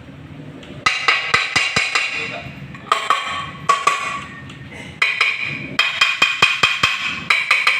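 Background music with a quick percussive, wood-block-like beat, starting suddenly about a second in.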